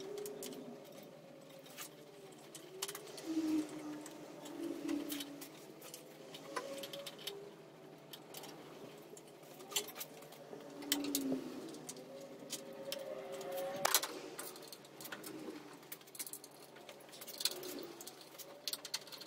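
Hand work on a van's front end: scattered sharp clicks and knocks of plastic and metal parts and tools being handled and fitted, with several short, low warbling sounds mixed in.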